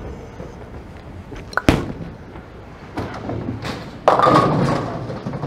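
Bowling ball released onto the wooden lane with a sharp thud, then a clatter of tenpins being struck about two and a half seconds later.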